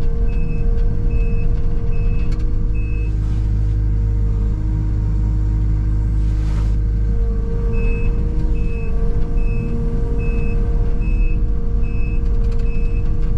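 Engine of a bucket-equipped machine running steadily while its backup alarm beeps about twice a second as it reverses; the beeping stops about three seconds in and starts again near eight seconds.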